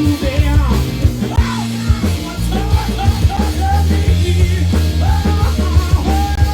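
A live rock band playing: steady bass, drum hits and a lead line of bending, sliding notes over the top.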